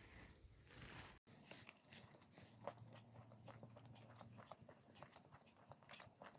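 A person biting and chewing crisp fried food close to the microphone, faint, with many small crunchy crackles; the sound cuts out briefly about a second in.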